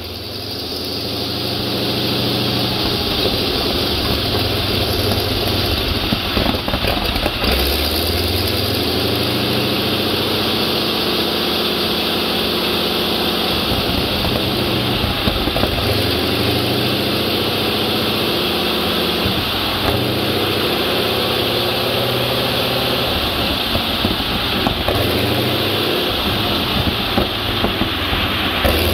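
Nine-cylinder, four-stroke Continental R975 C1 radial engine running on a test stand, its speed easing up and down gently several times.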